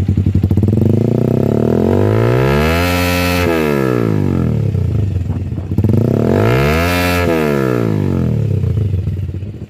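Single-cylinder Kawasaki Rouser 180 engine breathing through an SC Project MotoGP can-type slip-on exhaust, revved hard twice from idle to full revs, its pitch climbing and falling back each time. It is loud.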